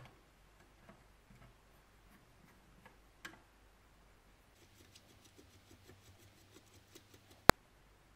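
Screwdriver working a small screw in the metal strap terminal on an old electric cooker's perforated heating plate: a few light taps and scrapes, then a run of faint ticks at about five a second, and one sharp click near the end.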